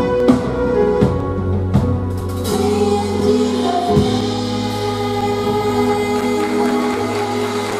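Children's choir and a woman singing a gospel song with instrumental accompaniment. Drum hits punctuate the first couple of seconds, then the music settles into long held notes.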